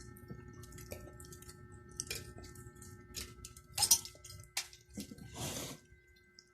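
Close-miked chewing and mouth sounds of a person eating chicken curry and fried chicken: irregular wet clicks and smacks, a sharp louder click about four seconds in, and a short rushing noise about a second later.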